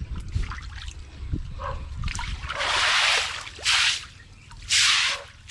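Water from an engine-driven water pump gushing and splashing in several loud rushing spurts over the second half. A steady low engine hum runs under the first half.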